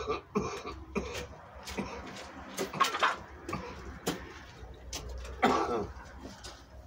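A man coughing a few times in short, separate bursts.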